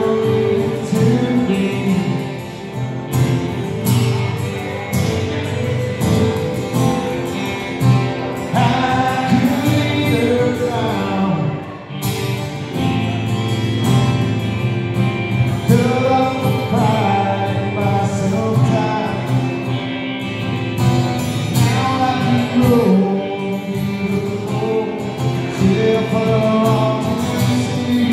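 Live band playing a song: male singing over strummed acoustic guitar, electric guitar and steel guitar.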